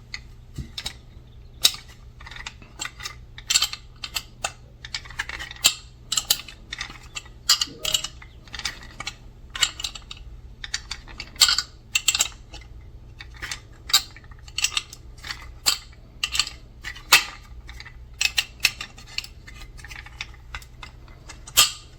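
Metal wrench clicking and scraping against a nut and bolt as the nut is tightened, in many irregular short clicks. A steady low hum runs underneath.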